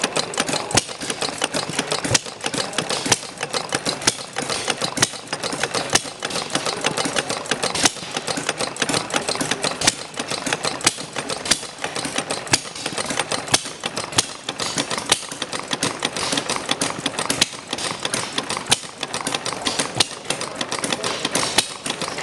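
Model of Henry Ford's Kitchen Sink Engine, a single-cylinder gasoline engine, running with a steady, busy mechanical clatter and a sharp click standing out about once a second.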